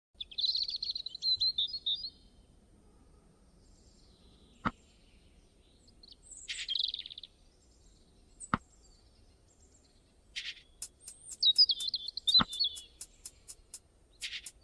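Songbirds chirping in short, high, twittering phrases with pauses between them, broken by a few sharp clicks. Near the end a fast, even, high-pitched ticking starts up.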